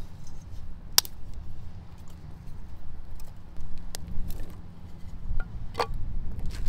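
Split firewood being laid onto a small campfire of twigs: a few sharp knocks and clicks of wood on wood, about a second in, around four seconds in and near the end, over a low steady rumble.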